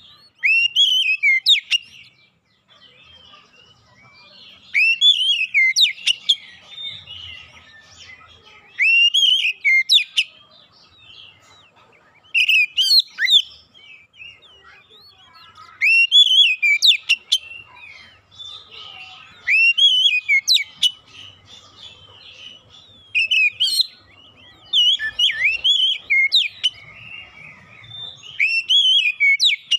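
Oriental magpie-robin singing: short bursts of rapid, sweeping whistled notes, about one burst every three to four seconds, with softer chattering between them.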